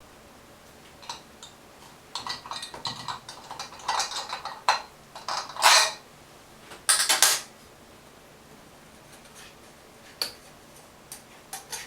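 Metal tools and shower valve parts being handled, clinking and clattering in quick clusters for several seconds, then a few single taps near the end.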